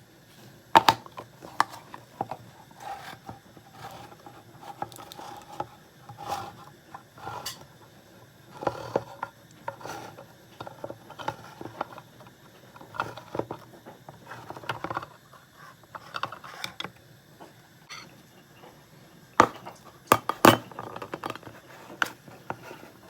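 Kitchen utensils clinking and scraping against dishes as pasta is mixed with tuna and sweet corn, in scattered short knocks with a few louder clatters near the end.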